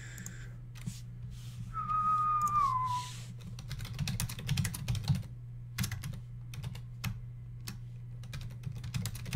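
Typing on a computer keyboard, a run of quick key clicks through the second half. About two seconds in, a short whistled note slides down in pitch, with a steady low hum underneath.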